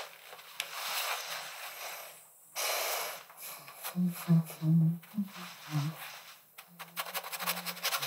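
Paintbrush strokes scraping over thick oil paint on canvas, each stroke a rough swish. From about halfway, short low vocal sounds from the painter, like breaths and grunts, come in bursts.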